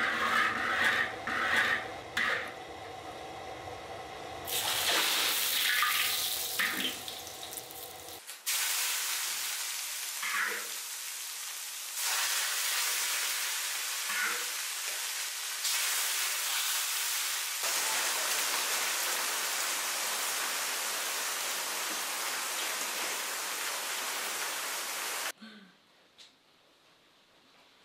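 A metal ladle scraping and clanking in a large wok, then a long, loud sizzle of hot oil frying over dried red chillies and fish filets in a steel basin, the finishing step of Sichuan boiled fish. The sizzle cuts off suddenly near the end.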